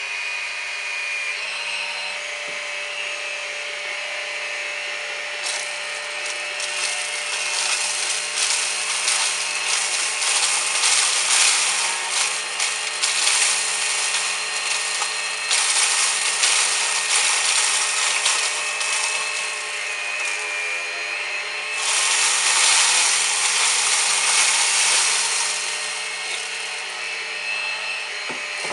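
Numatic Henry Quick cordless stick vacuum running with its turbo brush head, its motor whining steadily. Cornflakes rattle and crackle as they are sucked up, in stretches that are loudest about six to twenty seconds in and again about twenty-two to twenty-five seconds in.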